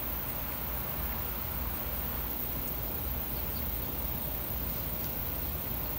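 Quiet backyard background: a steady low rumble, with a faint, high-pitched chirp repeating evenly about three times a second.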